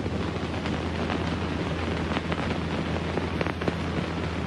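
Steady hiss with scattered small crackles over a low, steady hum.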